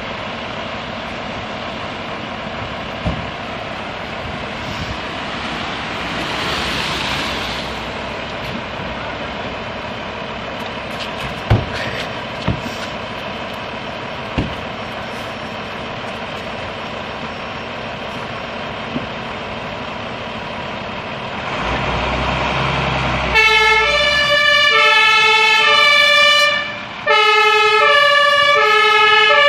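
Fire engines running, with a few sharp knocks. About 22 seconds in, an engine revs up. Then a German two-tone Martinshorn siren starts, switching back and forth between a high and a low note as the vehicles pull out, with a short break near the end.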